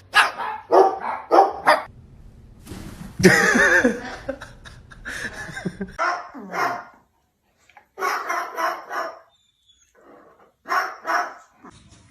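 A dog barking in short bursts: a quick run of barks, then further barks and yips spaced out with pauses between.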